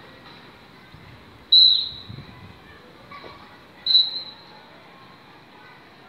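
Two sharp, high-pitched chirps about two seconds apart, each starting suddenly and fading within half a second.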